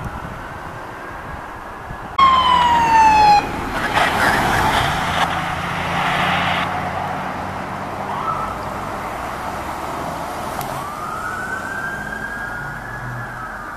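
Fire department emergency vehicle sirens. About two seconds in, a loud siren sounds briefly with falling pitch, followed by a few seconds of rushing vehicle noise. Near the end, a fainter siren wails, rising and then falling in pitch.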